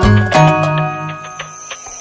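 Background music with plucked guitar-like notes over a beat, dying away about a second in.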